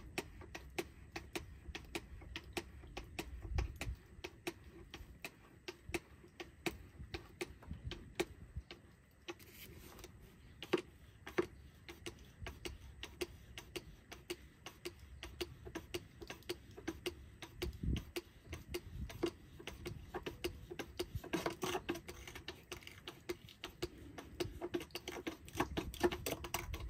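Rapid light clicking, several clicks a second, with a couple of dull thumps: a small hand fluid pump on a gallon jug being worked but no longer drawing fluid, its pickup hose having fallen off inside the bottle.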